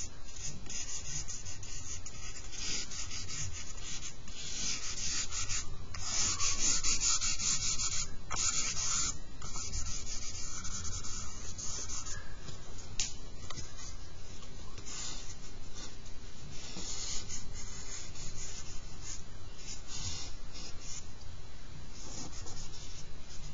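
Charcoal scratching and rubbing across drawing paper as a portrait is shaded, in many quick strokes with a louder stretch partway through.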